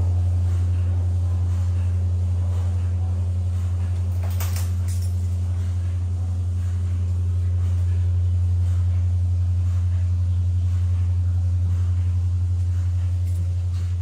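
A loud, steady low hum that does not change, with a single short click about four and a half seconds in.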